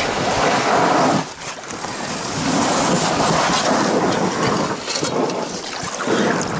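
PVC inflatable boat hull dragging and scraping over the wet, muddy shore and sliding into shallow water as it is pushed off, in two long pushes with a short pause between.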